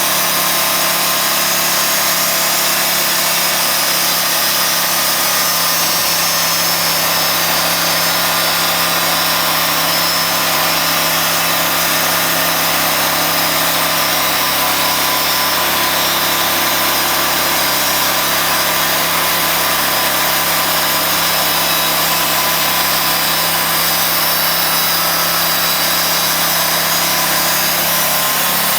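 Sawmill running steadily under load as its blade cuts through a large mesquite log, with the engine holding one even pitch that shifts slightly near the end.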